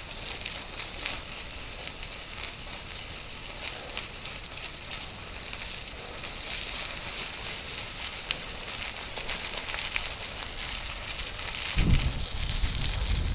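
Bicycle tyres rolling over loose gravel: a steady crackling hiss full of small clicks. Near the end, a low rumble joins in.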